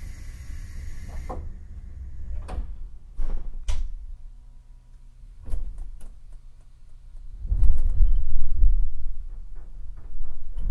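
Inside a JR 189 series EMU motor car standing at a station: a hiss that stops about a second in, then several knocks and thuds of the doors closing. About seven seconds in the train pulls away, and a loud low rumble from its MT54 DC traction motors and running gear builds up.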